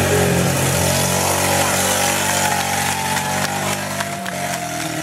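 Engine of an off-road 4x4 vehicle running hard at steady high revs, its pitch dropping a little about four seconds in.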